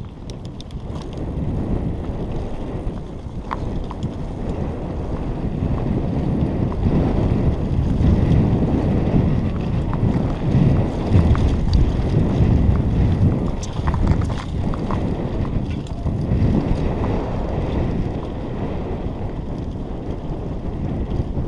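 Wind rushing over the microphone and the rumble of a mountain bike rolling fast down a dirt trail, with a few light clicks and rattles from the bike. The rush builds over the first several seconds as speed picks up.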